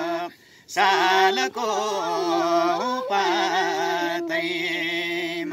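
Nepali folk song sung live by a man and a woman, with a bamboo flute holding long notes beneath the voices. The sound drops out briefly about half a second in, then the singing resumes.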